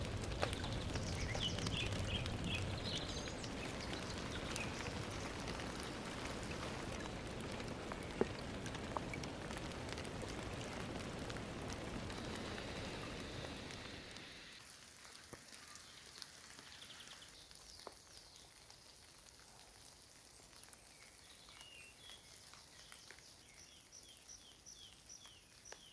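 Rain falling steadily in a forest, dropping much quieter about fourteen seconds in. Birds chirp through it, with a quick run of short high chirps near the end.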